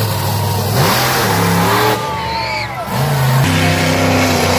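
Monster truck engine revving in repeated surges, its pitch climbing and dropping as the throttle opens and closes.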